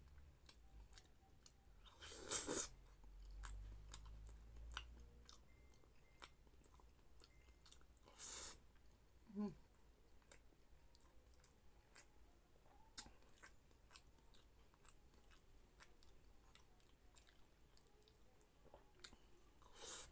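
Close-miked, faint chewing of pork menudo and rice, with many small wet mouth clicks. A few louder short rushes stand out, about two seconds in, about eight seconds in and near the end.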